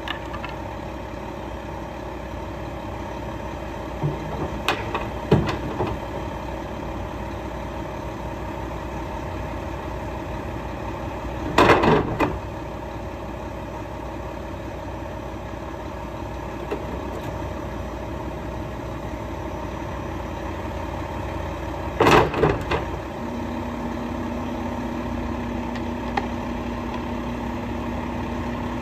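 Mack LEU garbage truck's diesel engine idling steadily, with clattering bangs as wood boards and plywood are thrown into the steel Curotto can on its front forks, a few seconds in, near the middle and about three-quarters through. Shortly after the last clatter a steady low hum joins the idle.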